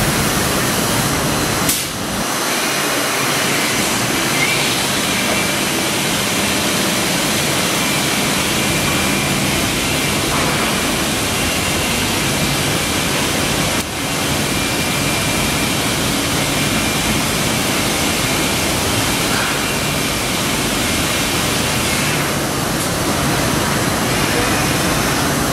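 IMA Quadroform C 80/280 CNC woodworking machining centre running, its spindle and dust extraction giving a steady loud rushing noise with a faint high whine. The noise dips briefly twice, about two seconds in and about halfway through.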